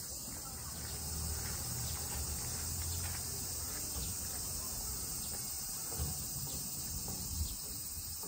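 Steady, unbroken drone of cicadas in summer trees, over a low rumble.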